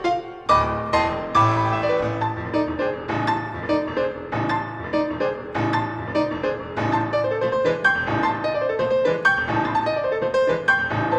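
Grand piano played solo in a classical piece: a busy stream of quick struck notes and chords after a brief break right at the start.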